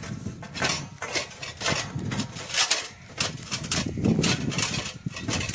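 A run of light knocks and clicks, a few each second, over a low steady background hum.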